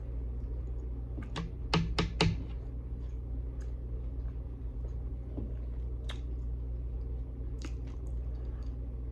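Close-up mouth sounds of chewing steak: a quick run of four sharp wet smacks and clicks between about one and a half and two and a half seconds in, then a few scattered faint clicks, over a steady low hum.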